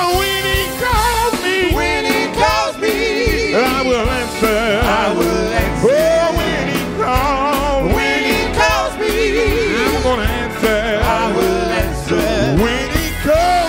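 Live gospel quartet singing with band accompaniment: lead and harmony voices in wavering, ornamented lines over electric guitar, keyboard, bass and a steady beat.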